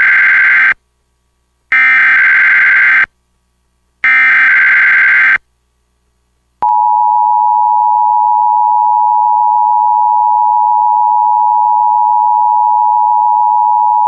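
Emergency Alert System header: the end of one burst and then two more identical bursts of buzzy SAME digital data, each about a second and a half long, followed after a short gap by the steady EAS attention tone starting about six and a half seconds in. Together they announce a Required Monthly Test alert.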